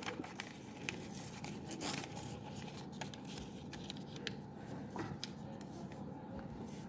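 Faint rustling and creasing of an origami paper sheet being folded by hand, with a few soft scattered ticks.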